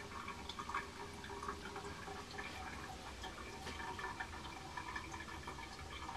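Drain water from an upstairs washing machine running down the drainpipe, heard through a sink drain: steady running water with irregular small splashes and drips.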